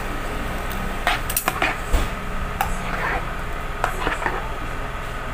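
Spoons clinking and scraping against a plastic bowl and small plastic cups as fruit salad is scooped out: a run of light clatters from about a second in until past four seconds, over a steady hum.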